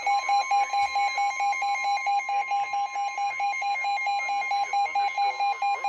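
Weather radio sounding its warning alarm: rapid beeping, about four beeps a second, over a steady high tone, the alert that announces a severe weather warning.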